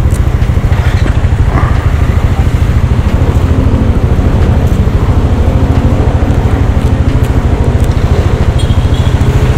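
Motor scooter engine idling steadily, a loud, even low running with no revving.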